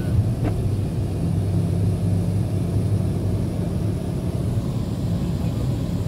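BMW car's engine and tyre noise heard from inside the cabin while driving: a steady low hum.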